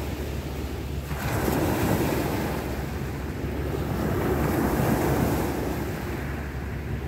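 Small sea waves breaking and washing up the shore, swelling about a second in, with wind buffeting the microphone.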